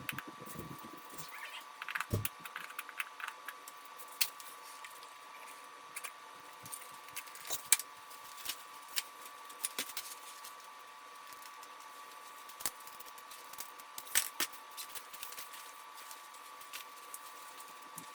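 Scattered light clicks and rattles of tools and parts being handled, over a steady faint whine.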